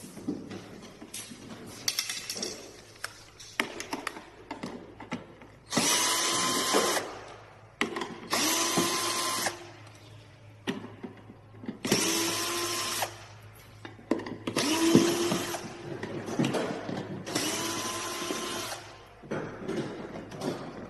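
Cordless power screwdriver driving screws in about five short runs of roughly a second each, its motor pitch rising as each run starts. Small clicks and knocks of parts being handled come between the runs.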